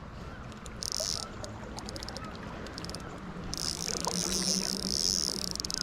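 Fly reel's drag buzzing and clicking as a hooked chum salmon pulls line off, the buzz starting and stopping in spurts, with rapid clicks between.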